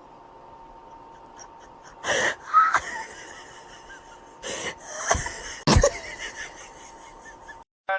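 A person's breathy vocal noises in several short bursts, about two seconds in and again between four and six seconds in, with a couple of sharp knocks among them.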